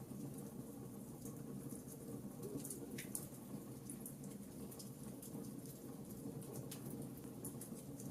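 Fireplace fire crackling: scattered small pops and ticks over a steady low rush of flame, with a couple of sharper pops about three seconds in and again later.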